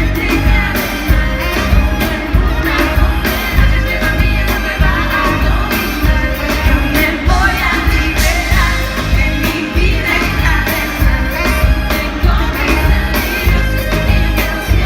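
Live pop song: a female lead vocal over a full band, with a steady drum beat.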